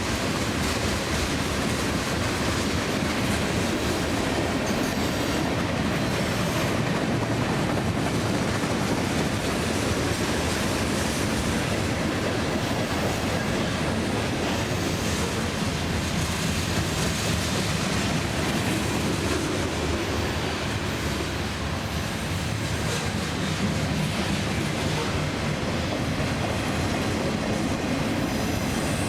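A CSX freight train rolling past at steady speed: continuous noise of freight-car wheels running on the rails, with no horn.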